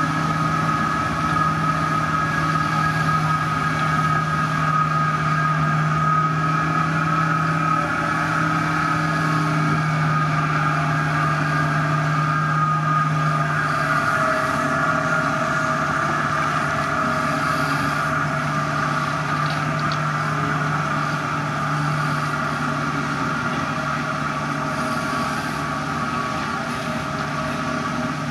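Diesel engine of a heavy road-construction machine running steadily at a constant pitch.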